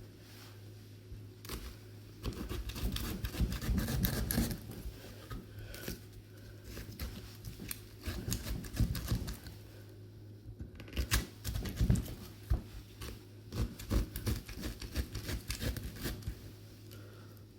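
Fish scaler of a Victorinox Angler Swiss Army knife scraping through a raw swede (neep), in uneven bursts of scratchy rasping strokes with short pauses between them.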